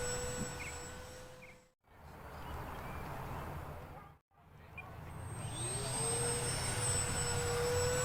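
Motor of a 3D-printed radio-controlled Vulcan model plane in flight, a steady whine that fades away about two seconds in. After a stretch of wind noise the whine comes back about five seconds in, rising in pitch and then holding steady.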